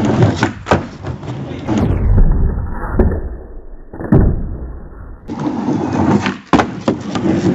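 Skateboard wheels rolling over wooden decking, with several sharp knocks as the tail is popped and the board lands during ollie attempts. A stretch in the middle sounds muffled.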